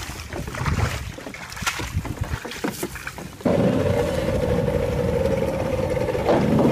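Irregular crackles and knocks. About halfway through they give way abruptly to the steady hum of a small fishing boat's motor running at constant speed, with wind and water noise underneath.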